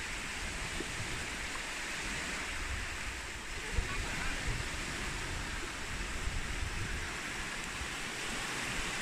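Small sea waves washing onto a sandy beach, a steady hiss of surf, with wind rumbling on the microphone.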